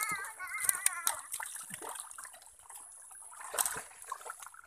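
Hands groping for catfish through watery mud, making wet sloshing, dribbling and squelching sounds with scattered small splashes. A brief high-pitched voice calls out at the very start.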